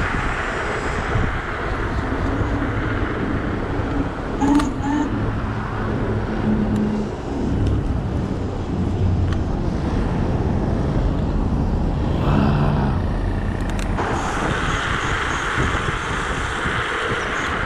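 Wind buffeting the microphone and tyre noise from a Dualtron electric scooter riding fast on a city street.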